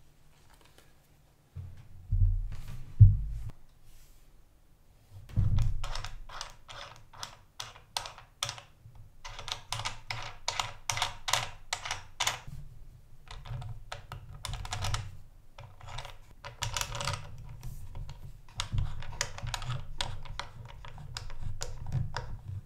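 Handling sounds: a few heavy low thumps as the speaker cabinet is moved, then a long run of quick clicks and taps, several a second in uneven clusters, as the knurled metal binding posts on the speaker's back are worked and a speaker wire is clamped in.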